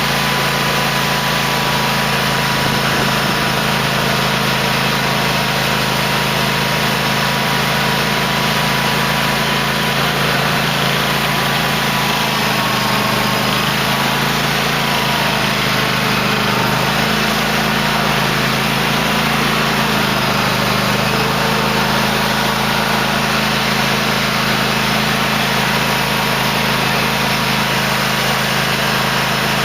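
2008 Cub Cadet LT1050 lawn tractor engine running at a steady speed without revving up or down.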